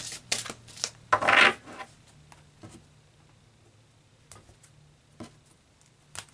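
A deck of tarot cards being shuffled by hand: quick clicks of cards at the start, a louder rustle of cards about a second in, then a few faint ticks.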